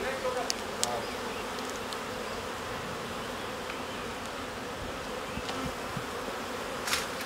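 Steady buzzing of a honey bee colony from an open wooden hive box while its frames are lifted out, with a few brief light clicks, the clearest near the end.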